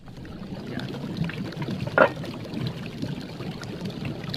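Aluminium cooking pot being handled: a single sharp metallic clank about two seconds in, then sliced bamboo shoots tipped from a metal bowl into the pot of water, over a steady rushing background.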